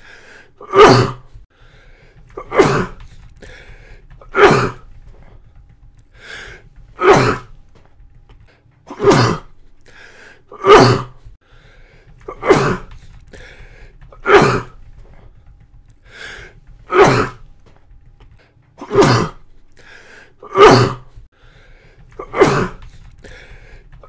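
A man coughing hard in a regular series: about twelve harsh, forceful coughs, one roughly every two seconds, each with a short breath drawn in before it.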